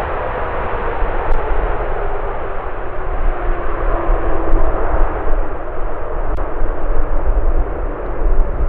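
Jet airliner passing close by, a loud steady engine roar with a deep rumble and a whine that slowly drops in pitch as it goes past.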